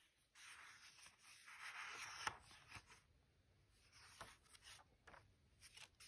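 Faint rustling and sliding of paper as the pages of a handmade paper journal are turned and handled, with a light tap about two seconds in.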